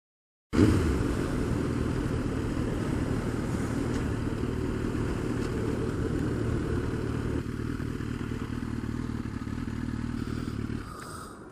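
Suzuki GSX-R1000 sportbike's inline-four engine running steadily under way, dropping away about a second before the end.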